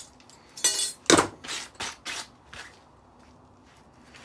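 Hand tools working metal parts of a stainless steel and machined aluminium decking light: a short run of sharp knocks and scrapes as the riveted stainless brackets are worked off, the loudest about a second in. Quieter after about three seconds.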